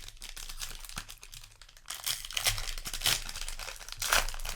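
Plastic foil wrapper of a trading-card booster pack crinkling and being torn open, with rustling that gets louder about halfway through.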